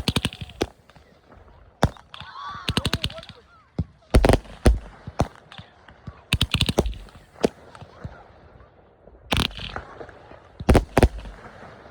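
Competition Fireworks 'Trigger Happy' 30-shot angled fireworks cake firing: sharp shots and bursts in clusters every second or two, with a quick run of rapid pops about two to three seconds in.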